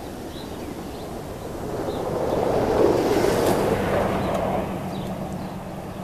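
A pickup truck driving past on a snow-covered street. The sound of its engine and tyres on the snow builds to a peak about three seconds in, then fades as it moves away.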